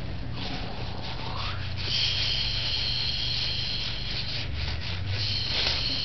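Fingers rubbing and smearing finger paint across paper. Over a steady low hum, a steady high-pitched whine comes in about two seconds in.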